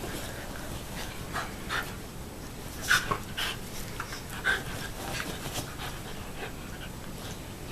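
A Shiba Inu and a puppy play-fighting: panting, with a scattering of short, sharp sounds, the loudest about three seconds in.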